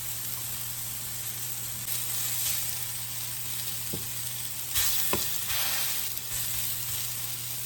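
Shaggy mane mushrooms sautéing in melted butter in a frying pan, with a steady sizzle. There are a couple of light knocks about four and five seconds in.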